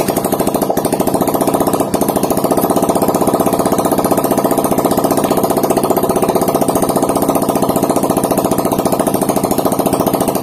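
Honda Beat FI scooter's single-cylinder, fan-cooled four-stroke engine idling steadily just after starting, with its fan cover off. The engine runs with a fast, even beat.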